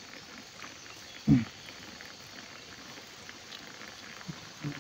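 Banana flowers and greens simmering in water over a fire, with faint bubbling and scattered small ticks. One short, louder low sound comes about a second in.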